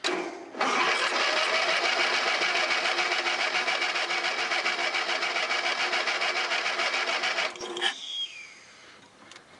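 Electric starter cranking an old Husky riding mower's engine for about seven seconds, a fast even chugging rhythm, then cutting off. The engine is being cranked with a little gas poured into the air intake, a test of whether the no-start is a fuel problem or a spark problem.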